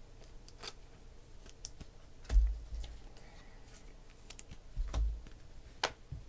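Panini Select football cards being handled and flipped through by hand: light clicks and flicks of card on card, with a soft thump about two and a half seconds in and another about five seconds in.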